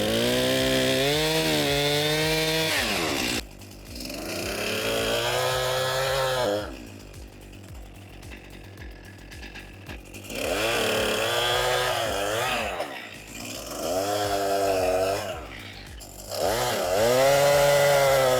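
Gas chainsaw revved up in five bursts, its engine pitch climbing and then sagging as it bites into wood, and dropping back to a low idle between cuts, with a longer idle about a third of the way in.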